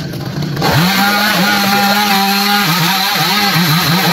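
Chainsaw engine revved up about a second in and held at high speed. Past the middle its pitch dips and recovers about three times a second as the chain works into a tree branch.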